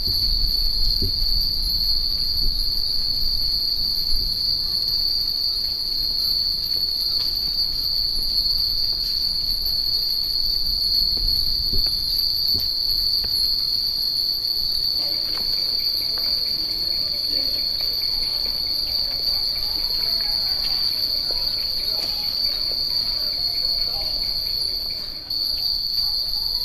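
A steady, high-pitched insect drone, typical of summer cicadas, runs throughout and breaks off briefly near the end. Beneath it, many small furin wind chimes tinkle faintly.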